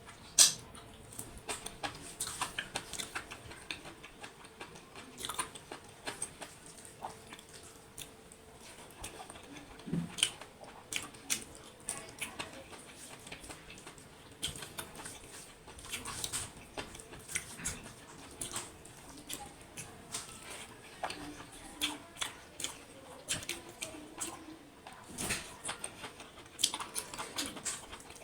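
Close-miked eating sounds: irregular wet smacks, clicks and chewing of a mouthful of mutton curry, rice and dal, with a sharp click about half a second in the loudest.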